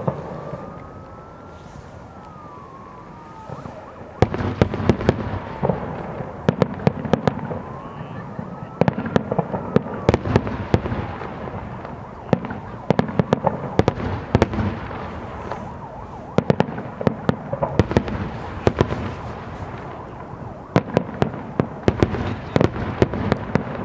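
Fireworks display: a rapid run of sharp bangs and crackling shell bursts, quieter for the first few seconds, then coming thick from about four seconds in. Rising-and-falling whistles glide over the bangs in the opening seconds and again later.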